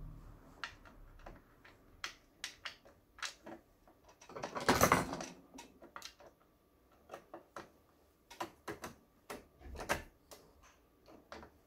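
Plastic clicks and taps as the front cover of a Brother Star 1000 sewing machine is fitted and fastened with a long screwdriver. A louder rustle lasting about a second comes a little before halfway.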